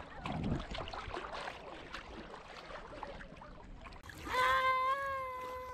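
Shallow seawater lapping and splashing softly around an inflatable swim ring pushed through the shallows. About four seconds in, a high-pitched voice starts one long held cry, the loudest sound here.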